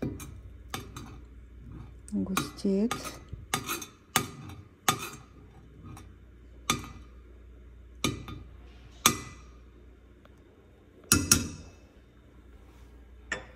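A spoon stirring semolina porridge in a pot, clinking and knocking against the pot at uneven intervals, with the loudest knock near the end; the porridge is thickening.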